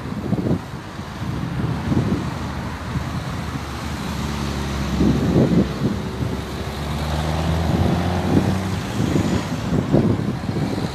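Road traffic: cars passing on the road, with one vehicle's engine running steadily for several seconds midway, and gusts of wind on the microphone.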